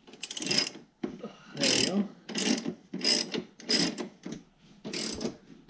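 Hand ratchet wrench clicking in a string of short strokes, a little more than one a second, as a bolt on a snowmobile's rear suspension skid is loosened.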